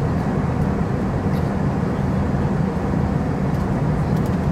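Steady cabin noise inside an Airbus A320 airliner on its descent: an even low drone of the jet engines and airflow over the fuselage, with a few faint clicks.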